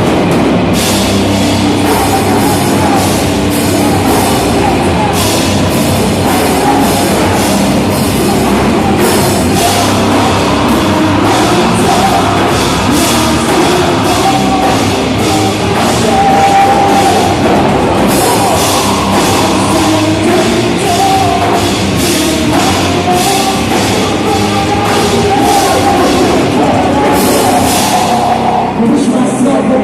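Live heavy rock band playing loudly, with a drum kit driving dense, steady cymbal hits under the band.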